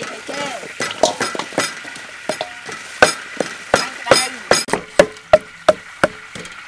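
Sharp knocks of a cleaver cutting limes on a wooden chopping board and of a pestle pounding in a mortar. They come sparsely at first, then two to three a second from about three seconds in, over the wet squelching of raw pork ribs being washed by hand in a steel bowl.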